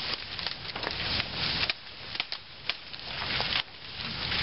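Dry brush and leaf litter crunching and crackling, with many small twig snaps scattered through it and louder rustling bursts about a second in and again a little past three seconds.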